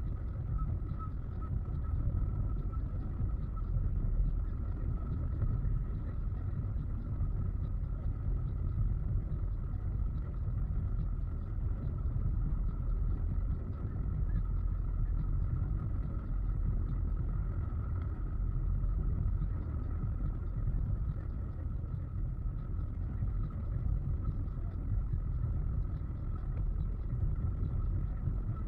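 Car driving at highway speed: a steady low rumble of road and engine noise, with a faint steady high whine over it.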